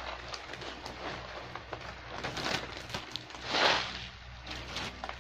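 Bubble wrap and plastic packaging crinkling and rustling as it is handled, with scattered small crackles and a louder rustle about three and a half seconds in.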